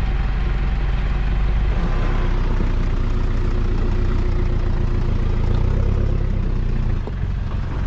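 Off-road 4x4 engine running steadily under load as the vehicle crawls up a steep, rutted dirt climb. The engine note drops about seven seconds in.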